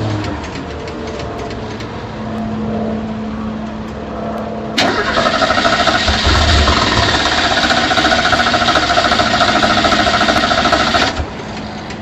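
Car starter cranking a flooded engine in one long attempt of about six seconds, beginning about five seconds in and cutting off abruptly near the end without the engine catching. Before it, a faint steady hum.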